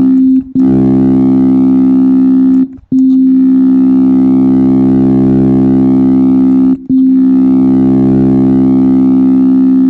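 FM synthesizer tone from Ableton's Operator: the same note held and replayed about four times, each a steady tone with many overtones and a slow wavering in the upper ones.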